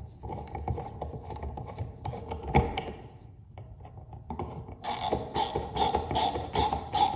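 Small irregular clicks and scrapes of hand tools working on an electrical outlet and its screws. About five seconds in, a music track with a steady percussive beat comes in.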